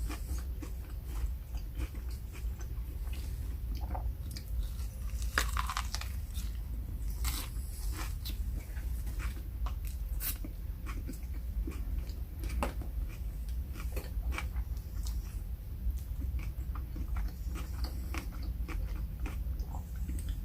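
A person chewing and biting food close to the microphone: wet mouth clicks and light crunching at an irregular pace, over a low steady hum.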